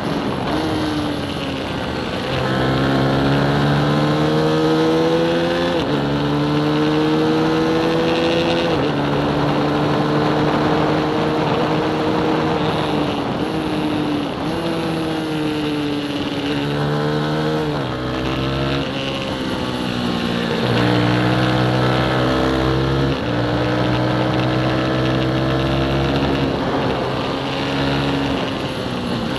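Small motorcycle engine heard onboard at racing speed. Its pitch climbs under throttle and drops sharply at each shift or roll-off, several times over, as the bike works through the corners of a lap.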